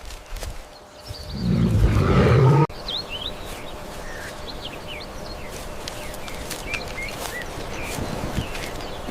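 A loud, low animal roar of about two seconds that cuts off abruptly. It is followed by outdoor ambience with many short bird chirps.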